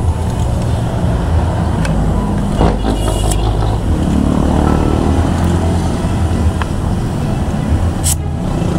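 Road traffic: cars and other vehicles passing in a steady low rumble, with a few short sharp clicks.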